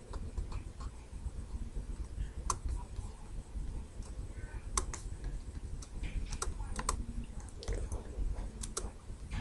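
Scattered clicks of a computer mouse and keyboard, about eight at irregular spacing and some in quick pairs, over a low steady background rumble.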